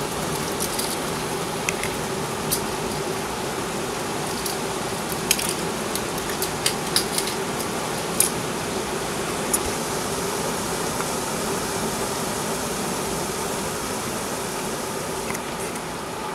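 Steady rain falling during a thunderstorm, with scattered sharp ticks of drops striking close by, most of them in the first ten seconds or so.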